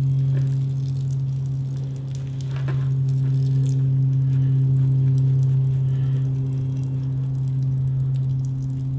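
A steady low hum with a couple of faint higher overtones, unchanged throughout. Faint clicks of gloved hands handling a fuel-line fitting on an outboard engine come just after the start and about two and a half seconds in.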